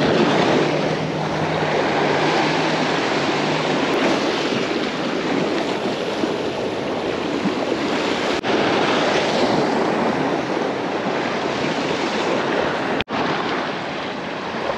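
Sea surf washing against a rocky shore, a steady rushing noise that swells and eases slightly.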